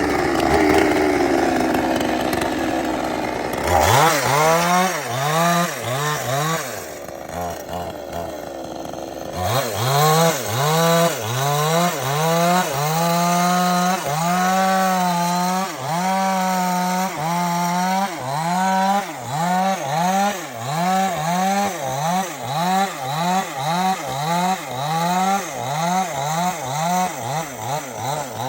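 Chainsaw cutting palm tree trunk. Its engine revs up and drops back about once a second, again and again, falls to a lull partway through, then resumes the same rise-and-fall pattern.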